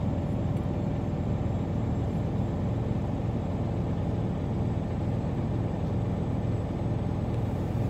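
Freightliner truck's diesel engine idling steadily, heard from inside the cab, while its air compressor builds brake air pressure during the air buildup test.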